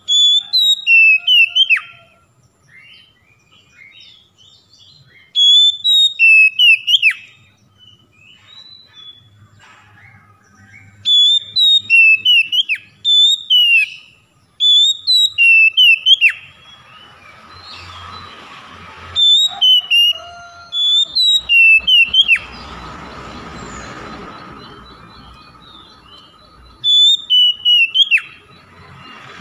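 Oriental magpie-robin (kacer) singing loud, clear whistled phrases, each a quick run of sharp notes, many slurring downward. There are about seven bursts with short pauses between, and softer notes in the gaps.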